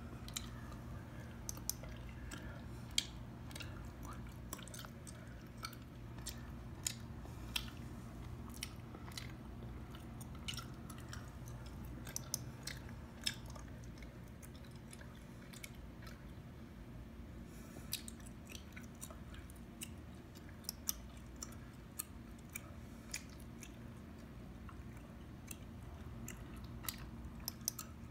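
Close-miked gum chewing: irregular wet clicks and smacks of gum between teeth, several a second at times, some much sharper than others.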